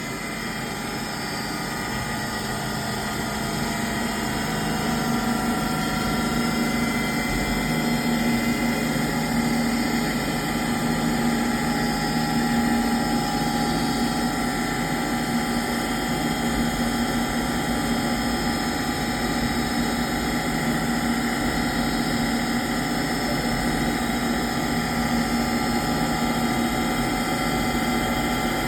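Industrial machinery running steadily, a continuous hum with several fixed whining tones, growing louder over the first few seconds and then holding level.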